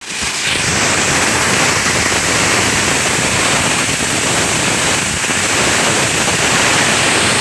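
PET bottle grinder machine running with a loud, steady noise.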